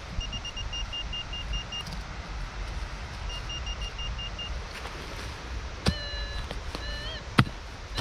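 Metal detector giving rapid pulsed beeps on one high pitch, two runs of about a second each, a signal the detectorist reads as junk metal, over wind rumble. In the second half a few short pitched calls with wavering pitch and a couple of sharp knocks, the loudest knock near the end.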